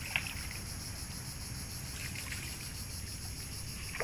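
Faint trickling and small splashes of shallow swamp water over a steady, high-pitched insect drone.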